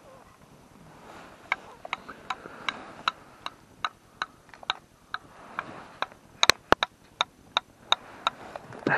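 Small reel of an ice-fishing rod being wound by hand, its clicker ticking about two to three times a second, starting about a second and a half in and getting louder near the end.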